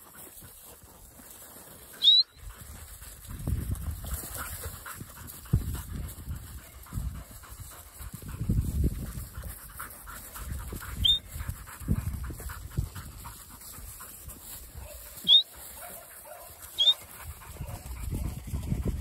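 Open-paddock sound while a working sheepdog is being handled: gusts of wind rumble on the microphone, and four short, sharp rising whistles cut through, the loudest about two seconds in and again near fifteen seconds.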